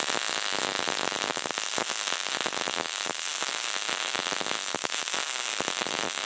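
MIG welding arc from an HTP Pro Pulse 200 welder running a bead on a lap joint. It gives a steady, dense crackle of close-packed clicks.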